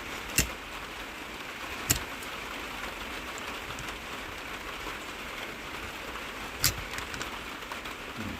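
Thick copper cable being stripped by hand with a razor blade: three sharp clicks of blade and wire over a steady hiss.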